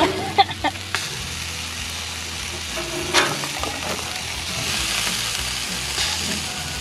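Hot dogs sizzling on a barbecue grill, a steady hiss of fat cooking, with a couple of brief louder sounds about half a second in and about three seconds in.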